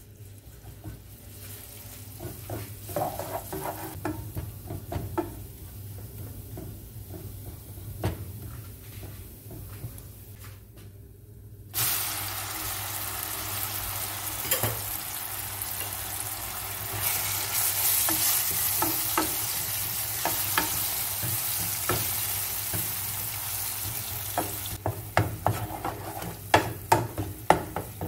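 Minced garlic frying gently in oil in a nonstick pan, stirred with a wooden spatula. About twelve seconds in, eggplant goes into the hot oil and a loud sizzle starts at once and keeps going. Near the end the spatula knocks and scrapes against the pan in quick taps as the eggplant is stirred.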